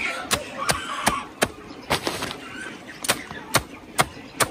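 A long kitchen knife chopping chunks of banana stem on a feed sack laid over the ground. The chops are sharp and even, about two a second.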